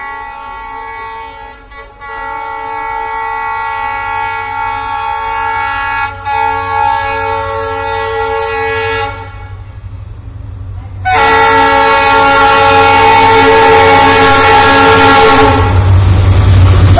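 Diesel freight locomotive's horn sounding two long blasts as the train approaches: one held for about nine seconds, then after a short break a second, much louder blast. Near the end the horn stops and the heavy rumble of the locomotive running past takes over.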